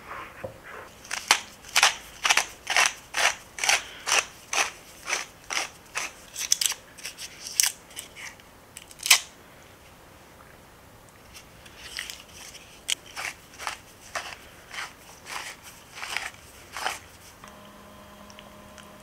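Thick puréed potato-vegetable soup simmering in a pot, its bubbles bursting with sharp pops about two to three a second, pausing for a couple of seconds partway through. A faint steady hum starts near the end.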